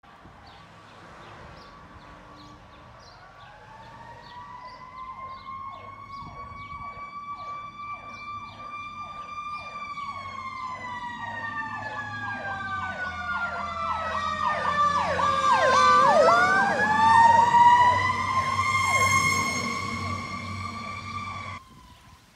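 Fire apparatus sirens on an emergency response: a fast repeating yelp layered with a long wail that slowly rises, falls and rises again. It grows louder as the apparatus approaches, is loudest about three quarters of the way through, and cuts off suddenly near the end.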